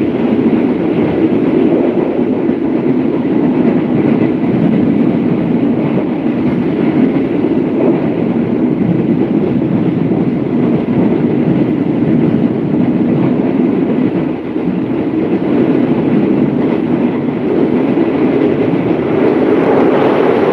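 Train carriage running steadily along the track, heard from an open window: a continuous rumble of wheels on rails with rushing air, dipping slightly for a moment about two-thirds of the way through.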